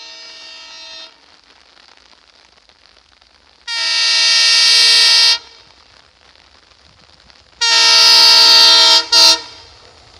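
Air horn of an Indian Railways WDM3D diesel locomotive sounding a series of loud blasts as the train approaches. One blast fades out about a second in, a long blast comes around four seconds in, then another long blast and a short toot near the end, each louder than the last.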